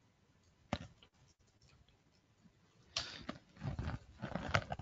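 Computer keyboard typing: a single keystroke about a second in, then a quick run of key clicks from about three seconds in.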